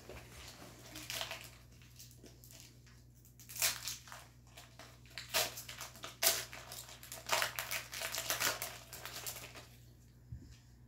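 Foil trading-card booster pack crinkling and tearing as it is opened by hand, with cards rustling against each other; a run of short crinkly bursts, the loudest about six seconds in.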